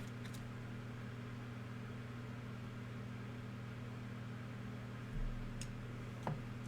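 Steady low electrical hum with a constant hiss. About five seconds in comes a brief soft thump, followed by a faint tick or two.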